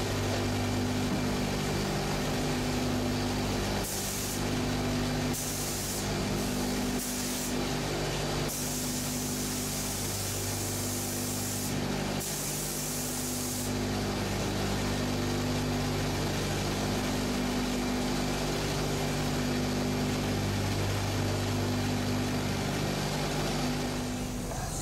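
Several short bursts of spray-gun hiss between about 4 and 14 seconds in, over a steady machine hum whose tone pulses about every two seconds.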